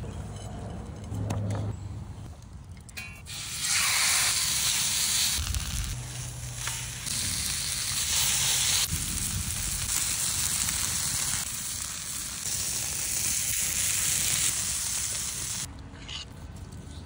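Steak searing on a hot shovel blade over a wood fire: a loud, steady, hissing sizzle that sets in about three seconds in and shifts abruptly several times before dropping away near the end.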